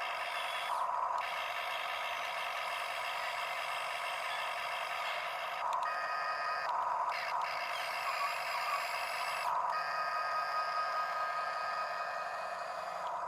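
Small electric motors of a Huina 1573 RC excavator whining steadily, with a few brief breaks and shifts in pitch.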